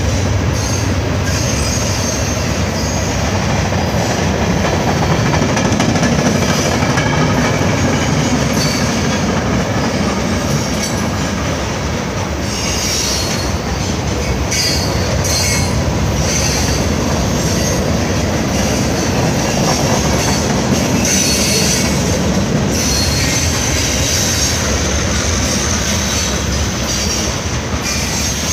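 Freight cars of a manifest train rolling past close by: a steady rumble of steel wheels on rail, with high-pitched wheel squeal that comes and goes, most often in the second half.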